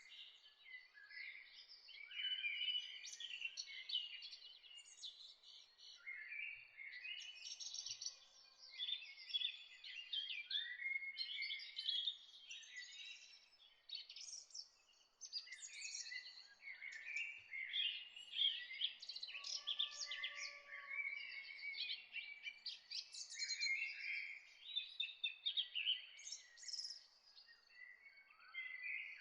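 A chorus of several songbirds chirping and trilling, overlapping calls almost without pause.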